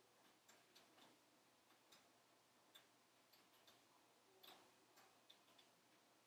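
Wood fire crackling faintly inside a closed wood-burning stove: irregular small pops and snaps, with a slightly stronger pop about four and a half seconds in.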